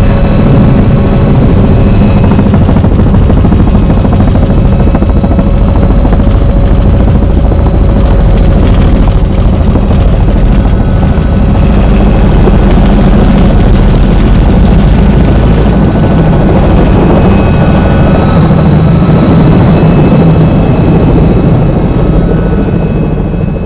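Helicopter running steadily: a loud, even rotor and engine noise with a thin, steady high whine over it.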